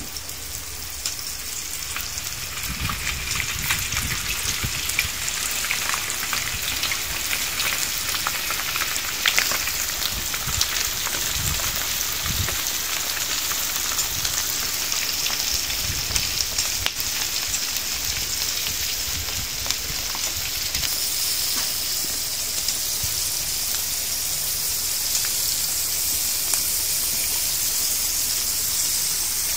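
Flour-coated chicken wings deep-frying in plenty of hot oil: a steady sizzle with many small crackles and pops.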